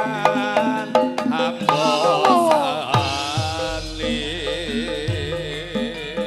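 Javanese gamelan playing, with kendang hand-drum strokes over struck bronze metallophones and a bending, wavering melodic line above them.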